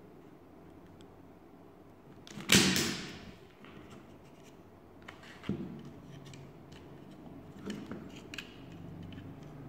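Parts of a laser-cut plywood model pistol being handled and fitted together: one loud sharp scrape about two and a half seconds in, then a few light clicks and taps.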